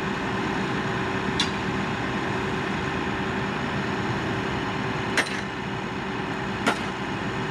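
Three sharp hammer blows on steel, spaced a few seconds apart, over the steady hum of an engine running. This fits the bashing work on a freshly poured thermite rail weld.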